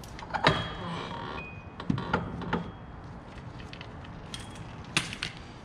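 Metal tools and suspension parts clinking and clanking: a few sharp metallic knocks with brief ringing, the loudest about half a second in, more around two seconds in and near the end.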